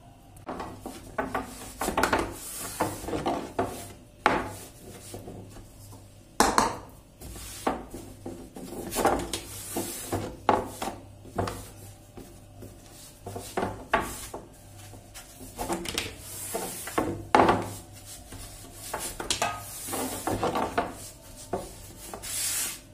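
Long thin wooden rolling pin (oklava) rolling and rubbing over a large wooden pastry board as yufka dough is rolled out thin with starch, in irregular strokes with a few louder wooden knocks.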